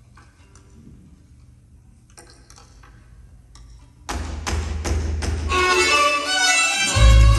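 A hush with faint scattered taps. About four seconds in, a mariachi ensemble starts with a few sharp struck chords, then the violins take up a sustained melody, and deep bass notes come in near the end.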